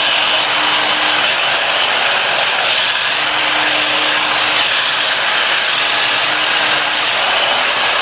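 An 1800 W hair dryer with a diffuser attachment blowing steadily: a loud, even rush of air with a faint high whine from its motor.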